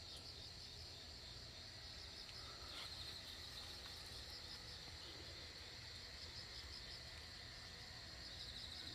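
Crickets chirping in a steady, high trill, with a faint low rumble underneath.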